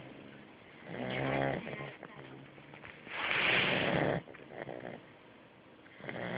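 Eight-week-old Staffordshire terrier puppy snoring in its sleep. A buzzing snore comes about a second in, then a longer breathy one around the middle, and the next begins near the end.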